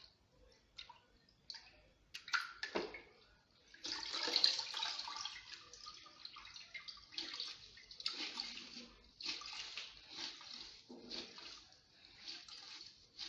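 Wet mop and water splashing and swishing: a few short splashes, then from about four seconds in a run of swishes roughly one a second.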